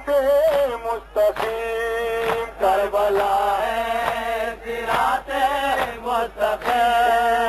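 Male voices chanting in long, held melodic lines with short breaks between them.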